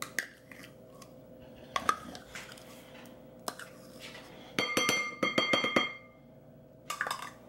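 A measuring cup knocked against a ceramic mixing bowl to get the pumpkin purée off it: a few scattered clinks, then a quick run of about eight ringing taps in the middle, and a short cluster of knocks near the end.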